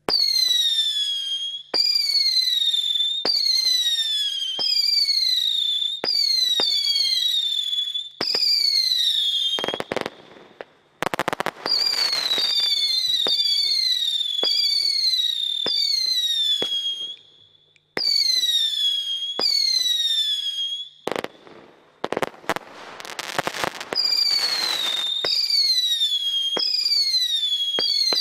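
Aquarius consumer fireworks cake firing a rapid sequence of shots, about one every half to three-quarters of a second. Each shot starts with a sharp crack followed by a whistle falling in pitch. There are two stretches of dense crackling, around ten seconds in and again a little past twenty seconds.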